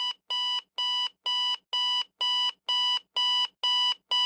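Electronic alarm clock beeping: a steady run of short high beeps, about two a second, growing slightly louder.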